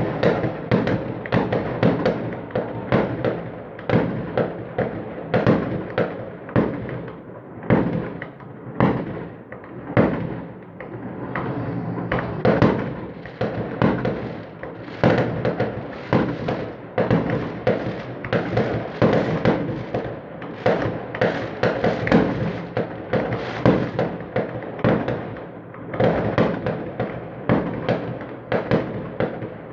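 Fireworks bursting in rapid succession, dozens of overlapping bangs and crackles with no break.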